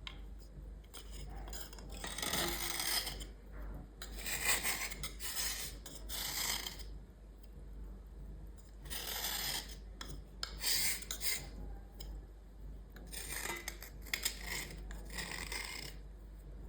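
Repeated scraping on a small hard item, in spells of about a second each with short pauses between, about seven in all.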